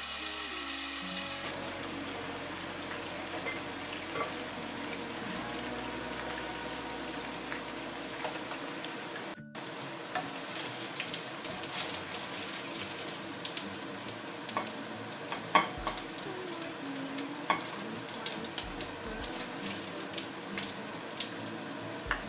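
Thinly sliced marinated beef (tapa) frying in oil in a nonstick wok: a steady sizzle with sharp crackles that come more often in the second half, as a spatula stirs the meat.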